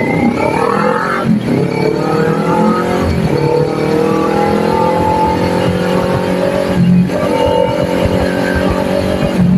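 Kawasaki Ninja 400 parallel-twin engine accelerating through the gears. The revs climb steadily and drop sharply at each upshift: about a second in, around three seconds in, just before seven seconds, and again at the end.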